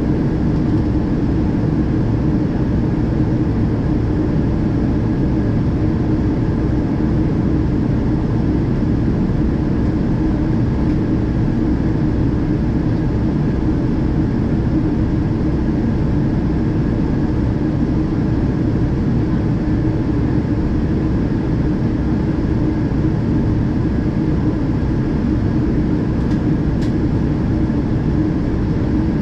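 Steady in-flight cabin noise of a Boeing 777-200ER at a window seat: the even rush of airflow and the drone of its Rolls-Royce Trent turbofans, with a steady low hum running underneath.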